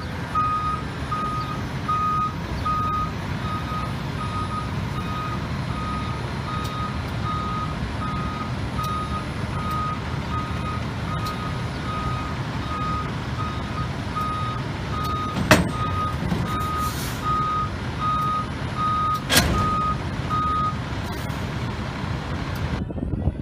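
BYD electric tractor unit's reversing alarm beeping steadily at one pitch, about one and a half beeps a second, stopping near the end. Two sharp knocks stand out in the later part, over a low rumble.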